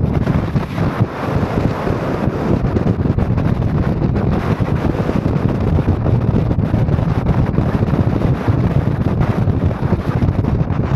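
Steady engine and tyre noise of a car driving, with wind buffeting the microphone.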